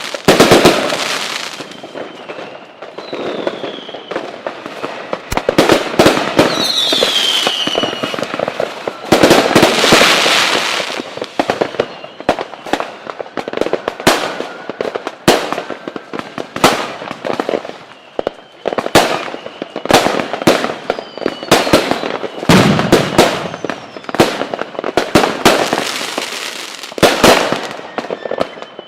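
Fireworks going off: a dense run of sharp bangs and crackling, with a couple of whistles that fall in pitch about 3 and 7 seconds in.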